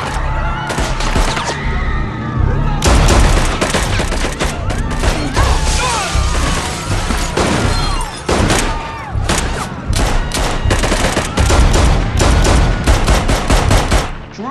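Sustained rapid gunfire from a drive-by shooting, many shots in quick succession from more than one gun. There is a brief lull about two seconds in, then the firing resumes and stops abruptly near the end.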